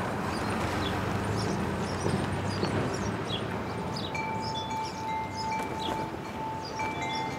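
Metal tube wind chime ringing, several long overlapping tones that come in about four seconds in and keep sounding, over a steady background hiss.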